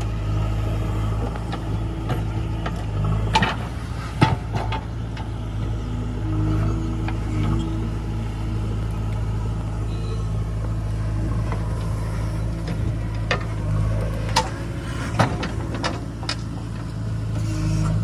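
JCB 3DX backhoe loader's diesel engine running steadily under load while the backhoe digs and dumps soil, with a few sharp knocks about three to four seconds in and again near fourteen to fifteen seconds.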